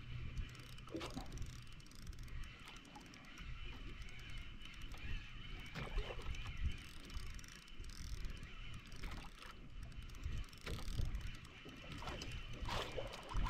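Small fishing boat at sea: a steady low hum, with irregular knocks and water splashes against the hull.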